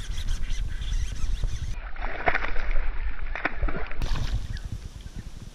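A hooked fish splashing and thrashing at the water's surface while being fought from a kayak, in irregular bursts that are busiest in the middle, over a steady low rumble of wind or handling noise on the camera.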